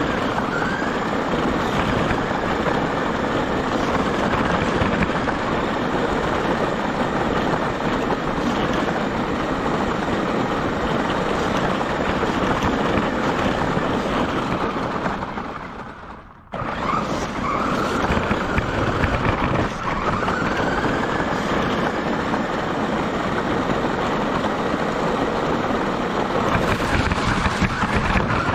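Radio-controlled car driving fast over a gravel path, heard from a camera mounted on the car: a dense rush of tyre-on-gravel noise, with the motor's whine rising as the car speeds up, once near the start and again a few seconds after the middle. About halfway through the sound fades away and then comes back abruptly.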